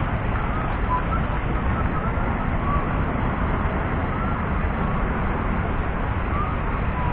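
Steady street traffic noise, a low rumble with no single vehicle standing out, with faint short chirps now and then.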